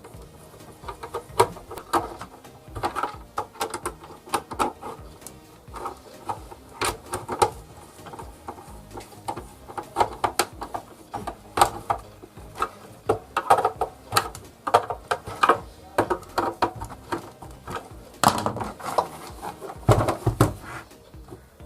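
Irregular clicks, taps and knocks of hands handling and fitting parts on a mixer grinder, many small sharp strikes close together with a denser cluster near the end.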